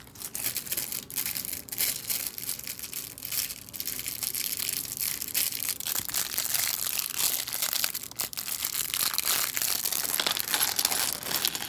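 Continuous crinkling and crackling of packaging, with small plastic clicks, as the Lego advent calendar pieces are handled.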